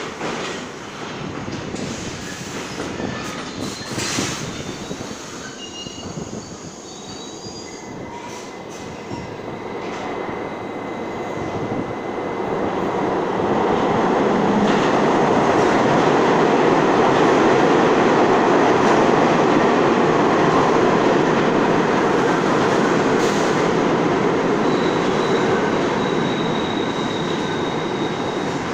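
New York City subway trains in a station: a train on a far track clicks and gives short high wheel squeals, then a second train runs in along the near track with a loud, building rumble of wheels on rails. The rumble is loudest in the middle and eases off a little near the end, when a thin high squeal comes in.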